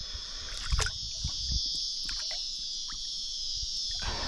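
Water splashing and sloshing around a Murray cod held by hand in the shallows while it is revived for release, with one sharper splash about a second in. A steady high-pitched insect chorus runs underneath.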